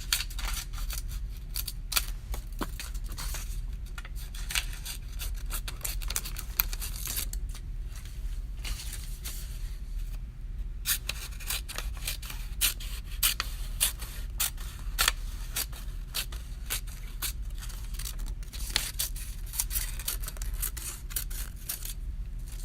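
Scissors cutting paper: a quick run of repeated snips, easing off briefly about ten seconds in before the cutting picks up again.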